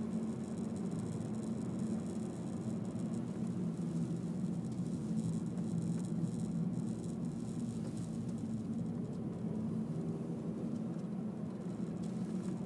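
Honda Civic 1.8 i-VTEC's four-cylinder engine and tyres running steadily on a descent, heard inside the car's cabin as a steady low hum with road hiss over it.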